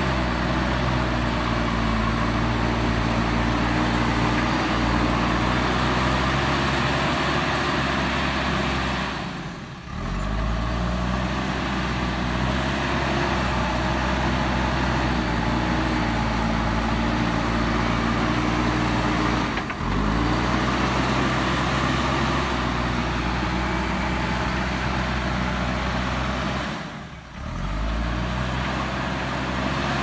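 JCB 3DX Super backhoe loader's diesel engine running steadily as the front loader bucket pushes soil, broken by three brief dips in level.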